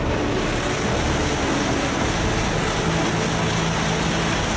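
Shinkansen E5-series bullet train passing through a station at high speed: a loud, steady rushing noise.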